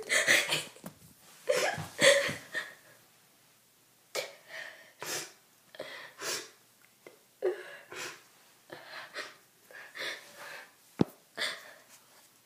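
A girl crying in short, breathy, irregular sobs and gasps with pauses between them, and a small click about eleven seconds in.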